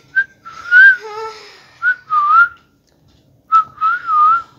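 Several short warbling whistles, each wavering up and down in pitch, in bursts of about half a second to a second with short gaps between them. A brief lower, voice-like note sounds about a second in.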